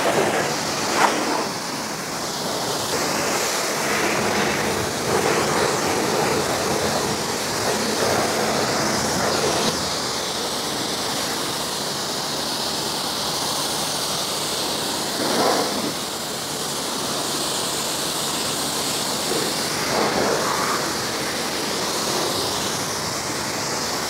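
High-pressure water jet from a BTALI 4HP commercial pressure washer, spraying steadily onto a car's body panels and wheel to rinse off shampoo foam, with a few brief louder surges.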